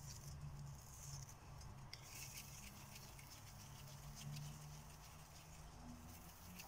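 Faint patter of hands pinching off and rolling soft, ghee-rich maida dough into small balls between the palms, over a low steady hum.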